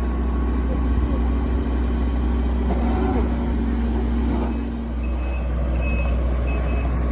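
Hydraulic excavator's diesel engine running steadily with a deep rumble. From about five seconds in, its warning alarm beeps, about two beeps a second, as the machine starts to move.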